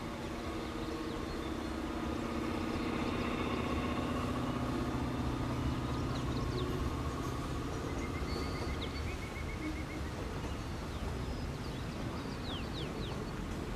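Diesel locomotive engines running steadily as a freight train passes, easing off after about seven seconds. A few short high chirps come over it near the end.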